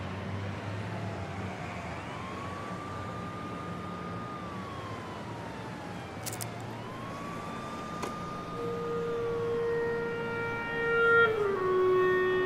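An emergency siren wailing, its pitch rising, holding and falling twice, over a low steady hum. About two-thirds of the way in, the music score enters with long held notes that grow louder.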